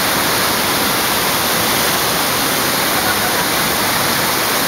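Steady rush of flowing river water, a loud, even hiss with no breaks.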